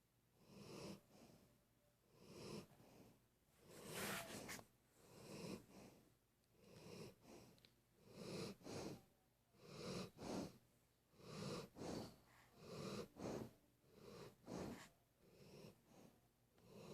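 A pet snoring quietly in its sleep, a snore on each breath about every one and a half seconds, many of them in two parts.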